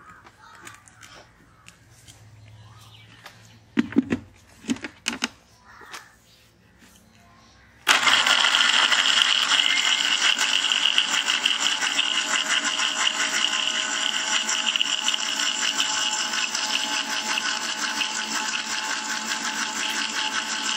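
A few knocks and clicks as the jar and its plastic lid are handled. About eight seconds in, an electric mixer grinder starts abruptly and runs on with a loud, steady whirr, blending milk and sugar into a chocolate milkshake.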